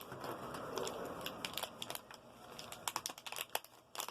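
Hands handling small plastic parts and packaging: irregular light clicks and taps with some crinkling, coming thicker after the first second.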